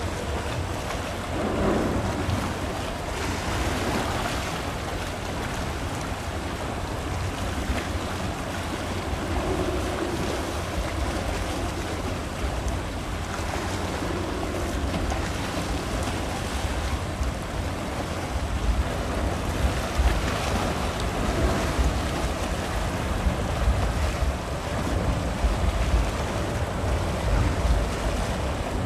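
Wind buffeting the microphone over washing water and a steady low rumble, the gusts growing stronger in the second half.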